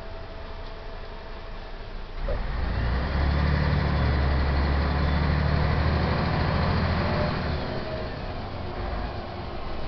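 MAN SD 202 double-decker bus's diesel engine, heard from inside the passenger compartment: it comes in loud under load about two seconds in, then eases off for the last couple of seconds.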